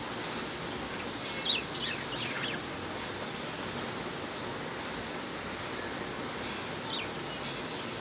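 Budgerigars chirping: a quick cluster of short, falling chirps about a second and a half in, and a single chirp near the end, over a steady background hiss.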